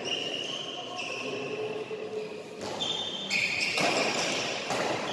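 A badminton rally: rackets strike the shuttlecock several times in the second half, in quick succession, with court shoes squealing on the hall floor as the players move.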